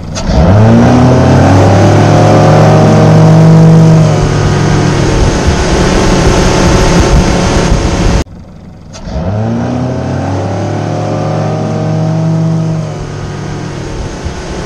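Yamaha outboard motor pulling a water skier up from a dock start under full throttle: the engine pitch climbs quickly, then holds steady at planing speed. About eight seconds in the sound cuts off, and the same hard acceleration starts again, rising and then settling.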